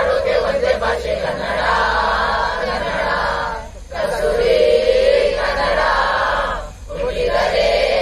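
A mixed group of young men and women singing a Kannada song together in unison, with two brief breaks between sung lines, just under four seconds in and again near seven seconds.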